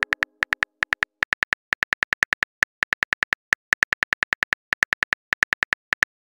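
Phone keyboard typing sound effect: quick runs of identical light clicks, one per keystroke, with short gaps between words, as a text message is typed out.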